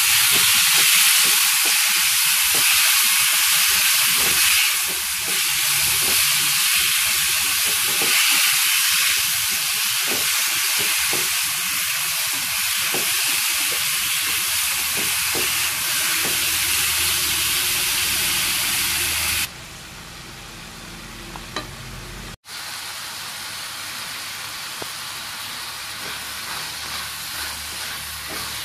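Food sizzling and crackling in hot oil in a frying pan, a dense steady hiss. About two-thirds of the way through it drops to a quieter sizzle, with a momentary break soon after.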